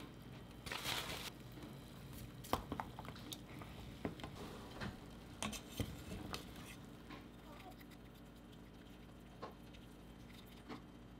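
Light kitchen clatter of utensils and dishes: scattered clinks and taps, frequent at first and thinning out after about seven seconds.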